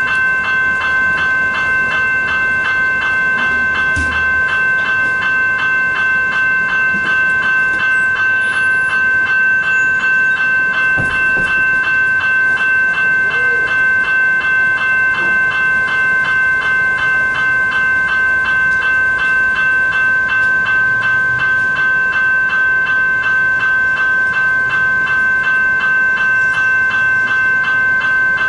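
Two General Signals E-Bell electronic level crossing bells ringing continuously in a rapid, even series of strikes, the warning that a train is approaching and the crossing is closed.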